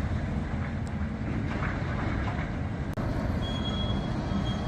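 Steady low rumble of a vehicle, with a faint thin high tone appearing in the last second or so.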